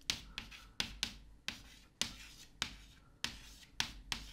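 Chalk writing on a blackboard: a string of sharp chalk taps and short scrapes, about two or three a second, as symbols and dots are put down.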